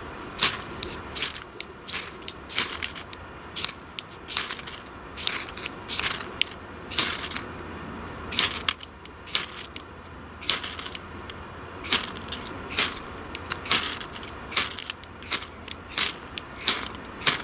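Ferrocerium fire steel scraped hard again and again, about one and a half short rasping strokes a second, throwing sparks onto fine wood shavings to light them.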